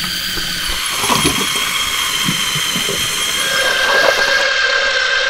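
Lego Technic tracked vehicle's electric motor and gear train whining steadily as it drives, with irregular clicking and knocking from the plastic tracks. A second, lower tone joins the whine about three and a half seconds in.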